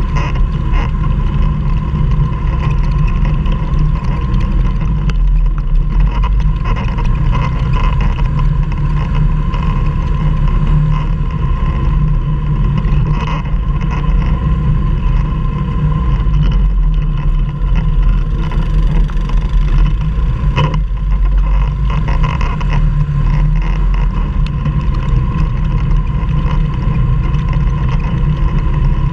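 Quad (ATV) engine running steadily and loudly under load on a steep mountain climb, with a few short knocks.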